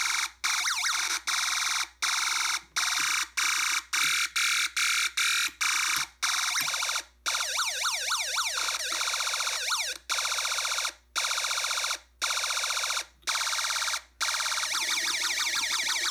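KD9561 sound-generator chip in its machine-gun mode, played through a small loudspeaker: a harsh, hissing electronic buzz chopped into bursts about a second long by short gaps. The bursts grow longer in the middle as the resistance setting is changed. It doesn't sound much like a machine gun.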